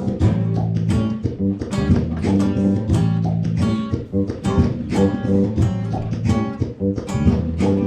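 Live guitar playing: quick plucked notes over a steady low bass line, with no singing.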